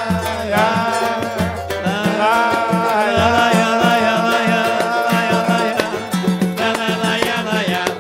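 Live samba band playing, without words: a steady low percussion beat under a melody line.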